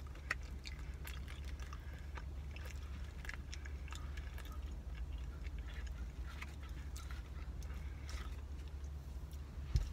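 Close-up chewing of a soft, sticky caramel pecan cinnamon roll: faint wet mouth clicks and smacks, scattered irregularly, over a steady low hum.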